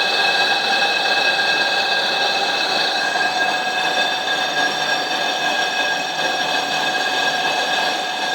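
Truck brake disc being machined on a lathe: the cutting tool runs against the turning cast-iron disc with a steady metallic ringing squeal of several tones over a hiss of cutting noise, the tones shifting slightly about three seconds in.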